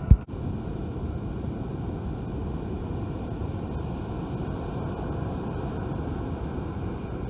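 Steady low rumble of wind buffeting the microphone over breaking surf, with a brief thump just after the start.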